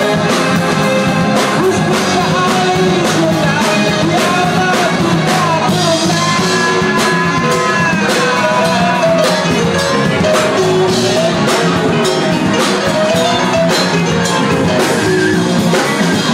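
Live rock band performing an original song: a singer over a drum kit and keyboard, with cymbal hits throughout.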